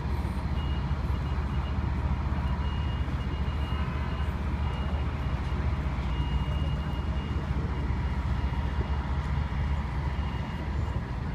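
Steady low rumble of idling heavy trucks and passing road traffic, with a faint high beeping that comes and goes over it.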